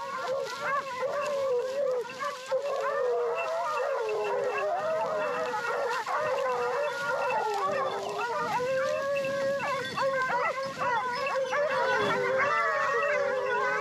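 A pack of porcelaine scent hounds baying and howling continuously, many voices overlapping, as they run in full cry on a scent during a wild boar hunt.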